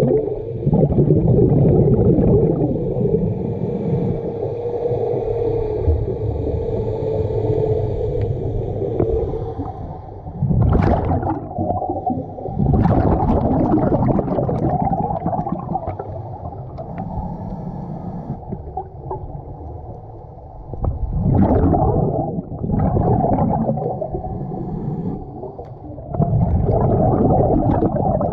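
Underwater sound of a scuba diver breathing through a regulator: gurgling bursts of exhaled bubbles every few seconds over a constant low rumble. A steady hum runs through roughly the first nine seconds, then stops.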